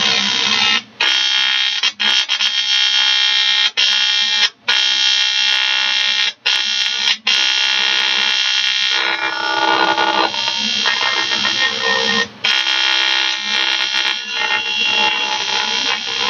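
Eastwood TIG 200 AC/DC welder's AC arc buzzing on 1-inch-thick 6061 aluminum: a loud, steady buzz, broken by several brief drop-outs in the first half, with its tone shifting for a few seconds in the middle.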